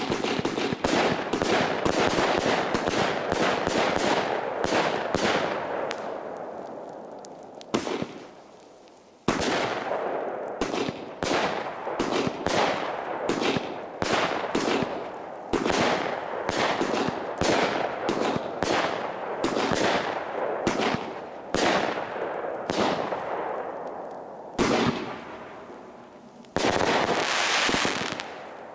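Compound fireworks battery (Startrade Feuerzauber XL) firing shot after shot in quick succession, each a sharp report followed by crackle. There is a pause of about a second and a half roughly a third of the way in, and a dense rush of crackling near the end.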